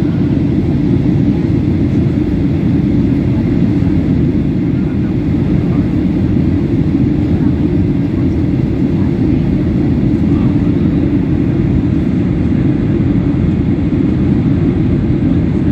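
Steady low rumble inside a jet airliner's cabin in cruise: engine and airflow noise coming through the fuselage by the window seat.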